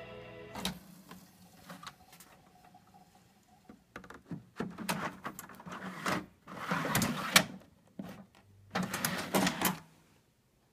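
A plastic CED disc caddy scraping and clicking as it slides through the front slot of an RCA SelectaVision SFT100 video disc player, in several bursts. About half a second in, a click of the player's lever cuts off the film's music.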